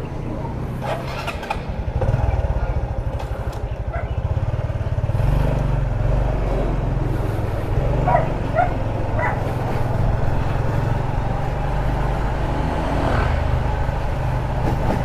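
Honda RS125 Fi's 125 cc single-cylinder four-stroke engine pulling away and running at low speed, building about two seconds in and again about five seconds in. Three short yaps from a small dog come about eight to nine seconds in.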